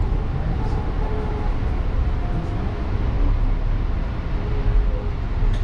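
Steady low rumble of a light rail car running, heard from inside the passenger cabin, with faint wavering tones rising and falling over it.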